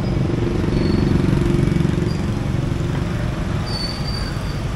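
Motorbike engine passing close by, swelling about a second in and easing off after a couple of seconds, over the steady hum of street traffic.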